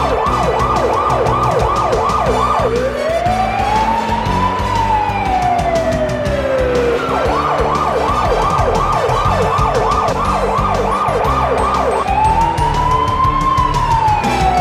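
Electronic police car siren switching between a fast yelp, about four sweeps a second, and a slow rising-and-falling wail, twice over, with music playing underneath.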